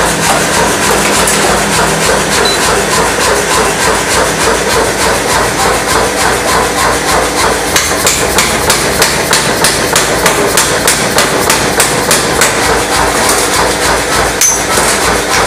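Mechanical power hammer forging a red-hot steel nipper blank held in tongs: a fast, even run of heavy blows, several a second, over the machine's steady running noise. The blows are sharpest in the middle of the stretch.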